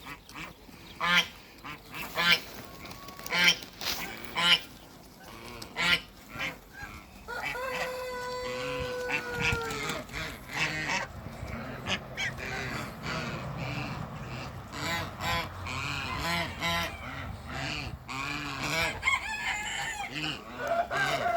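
Domestic geese honking with ducks among them: separate sharp honks in the first few seconds, one long held call about eight seconds in, then a dense run of overlapping calls through the second half.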